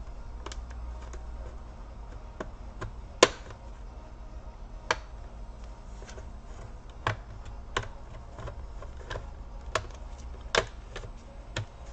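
Plastic palmrest cover of an Acer Aspire 5253 laptop being pried off the bottom case with a plastic card, its clips snapping loose one at a time: irregular sharp clicks, the loudest about three seconds in.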